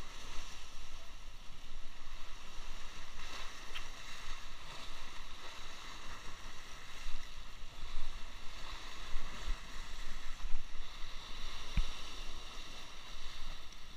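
Sea waves breaking and washing over shoreline rocks in a steady rush that swells and falls, with low wind rumble on the microphone. A single sharp knock sounds near the end.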